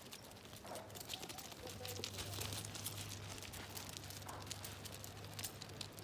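Goats' hooves clicking and clattering irregularly on loose stones and gravel, over a faint steady low hum that starts about two seconds in.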